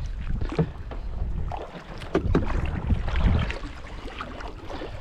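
Canoe being paddled: paddle strokes in the water and a few sharp knocks, with wind buffeting the microphone.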